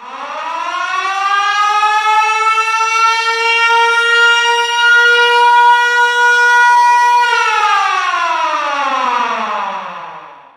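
Military air-raid siren winding up from a low pitch to one steady wail over the first two seconds or so, holding it, then winding down from about seven seconds in until it dies out near the end.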